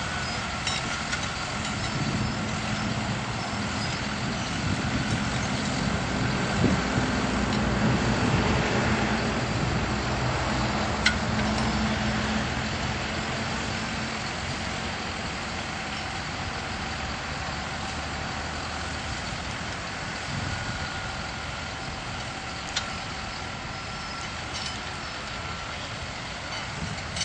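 Farm tractor's diesel engine running steadily under load while pulling a plough, swelling to its loudest about a third of the way in and then slowly fading. Two brief sharp clicks stand out, one near the middle and one later.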